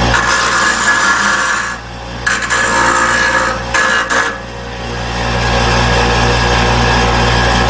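Electric grinder running, with a small aluminum bar piece pressed against the wheel three times in the first half, grinding its edges round; after that the motor keeps running freely.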